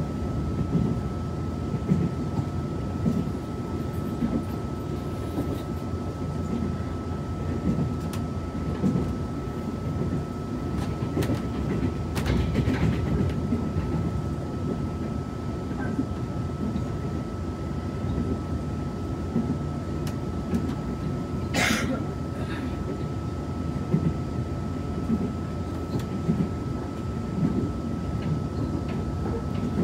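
Cabin noise inside a Taiwan Railways Tze-Chiang push-pull express car on the move: a steady low rumble of the running train with a constant faint high tone. A brief sharp noise cuts through about two-thirds of the way in.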